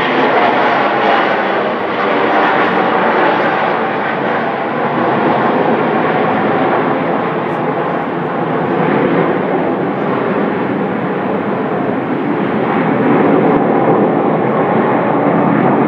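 Formation of Aermacchi MB-339 jet trainers flying over, their turbojets making a steady jet roar that swells slightly near the end.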